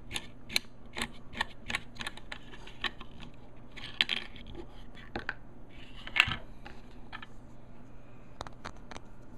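Small plastic clicks and clatter of a plastic GPS mount being handled and taken apart by hand, its swivel head turned and its knurled adjustment knob unscrewed. A quick run of sharp clicks comes in the first three seconds, with a louder click about six seconds in.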